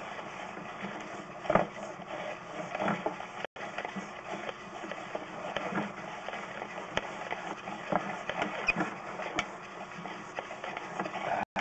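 Sewer inspection camera being pushed along a PVC drain line: irregular clicks, knocks and scraping over a steady background noise, and the sound cuts out briefly twice.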